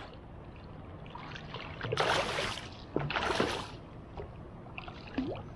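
A small hooked fish thrashing at the surface beside a kayak: two splashes about a second apart, roughly two and three seconds in, over gentle water noise.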